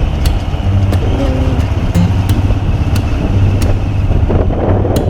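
Motorcycle running along the road, a steady low engine sound with short clicks here and there.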